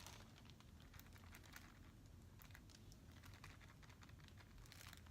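Faint, scattered light clicks and taps as takeout food containers and packaging are handled, over a low room hum.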